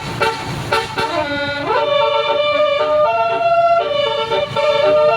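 Tour bus's telolet horn playing a tune: a run of held notes stepping from pitch to pitch, with a quick rising glide into a higher note about a second and a half in.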